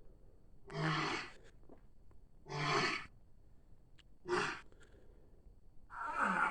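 Stegosaurus sound effect: four short, breathy animal-like bellows, each about half a second long, coming roughly every one and a half to two seconds. The last call slides down in pitch as it ends.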